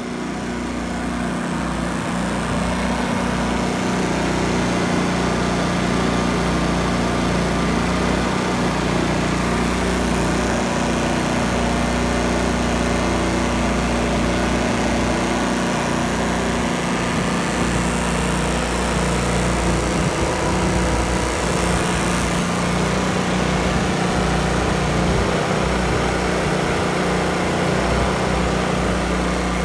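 Two Briggs & Stratton P3000 inverter generators running together in parallel, powering a camper's air conditioner: a steady engine drone that grows louder over the first few seconds.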